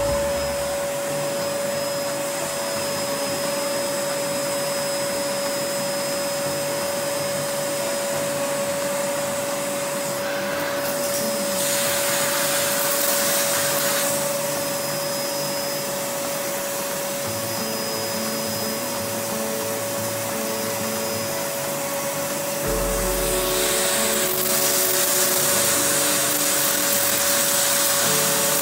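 Homstar HS VC2300 vacuum cleaner running steadily: a constant motor whine under the rush of air. The air noise swells partway through and again for the last few seconds.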